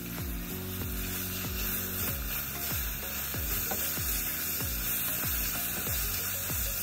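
Food sizzling in a hot pan while being stirred, a steady hiss, over background music with a steady beat.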